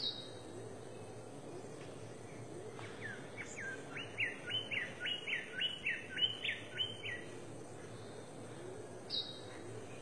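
King bird-of-paradise calling: a run of about a dozen quick downward-sliding whistles over about four seconds, with a single short, higher falling note at the start and again near the end. Steady forest background noise runs beneath.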